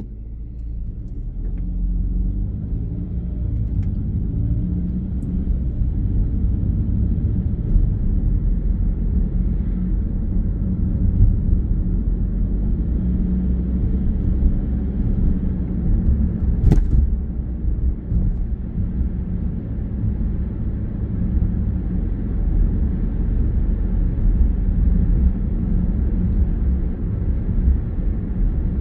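Car engine and tyre rumble heard from inside the cabin, growing over the first couple of seconds as the car pulls away from a standstill, then running steadily at cruising speed. A single sharp click a little past halfway.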